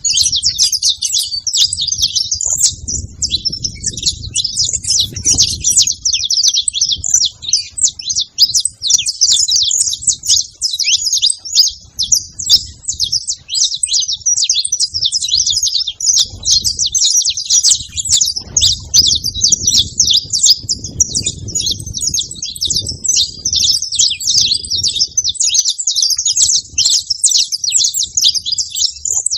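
A flock of saffron finches chirping and singing together in a dense, continuous chorus of rapid high chirps.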